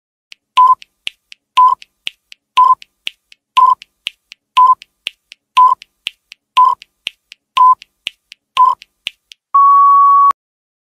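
Countdown timer sound effect: a short electronic beep once a second, nine times, with sharp ticks between the beeps, ending in one longer, slightly higher beep as the count reaches zero.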